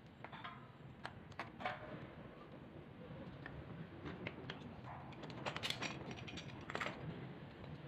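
Metal hand tools (locking pliers and a pipe wrench) clicking and clinking against brass and plastic pipe fittings while a pipe union is being loosened: scattered sharp clicks, a few about a second in and a tighter cluster near the middle.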